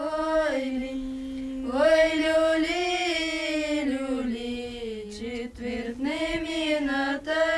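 Slow unaccompanied singing by several voices in unison, holding long notes that slide from one pitch to the next.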